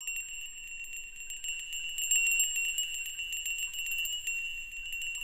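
A bell-like, steady high ringing tone with a fainter higher one above it and a fine metallic tinkling over both, starting suddenly out of silence: the ambient soundtrack of a butoh dance piece.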